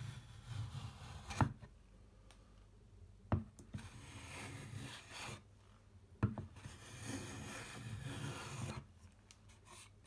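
Metal hand plane shaving the tops of thin hardwood drawer dividers flush: three soft rubbing strokes, with a sharp knock between them.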